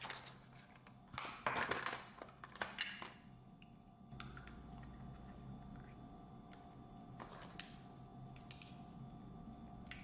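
Clear plastic blister packaging of an AirPods Pro case being handled and opened, with a cluster of plastic crinkles and clicks in the first three seconds. After that comes a faint steady hum with a few small clicks of the thin plastic case being handled.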